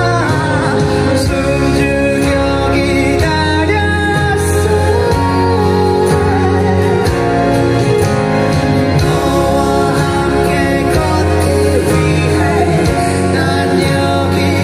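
Live band music with a male lead vocal sung into a microphone over a steady, heavy bass line.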